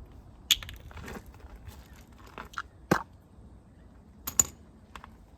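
A one-litre plastic engine-oil bottle being handled and its cap opened: sharp plastic clicks and crinkles, loudest about half a second in, near three seconds and near four and a half seconds.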